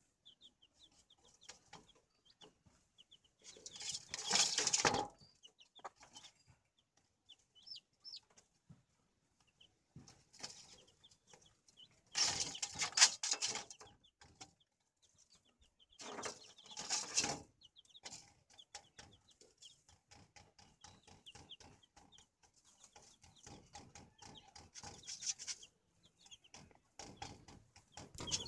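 A hen with her young chicks: the chicks peep in short, high, repeated notes and the hen clucks softly. Four louder bursts of rustling and scratching noise break in, the longest near the end.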